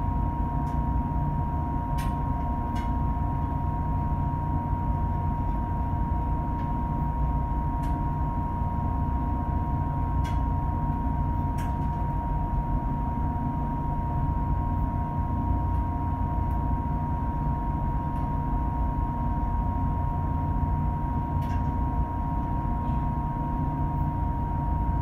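Steady low engine rumble of a boat under way, heard from on board, with a steady high whine over it and a few faint ticks scattered through.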